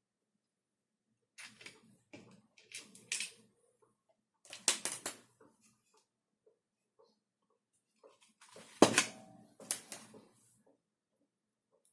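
Hands handling and fitting hard plastic gun parts: scattered clicks, taps and rustles in small clusters, with one sharper knock about nine seconds in.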